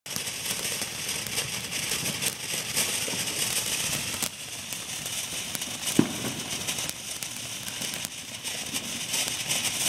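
Fireworks crackling continuously with many small overlapping pops, with one sharper, louder pop about six seconds in.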